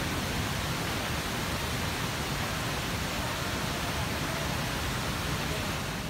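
Artificial indoor waterfall, the Rain Vortex, heard close up: a steady, even rush of a large volume of water falling through its round opening.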